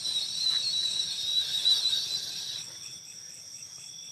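Night insect chorus of steady high-pitched chirring, with one louder, closer insect trilling shrilly for the first two and a half seconds before it stops.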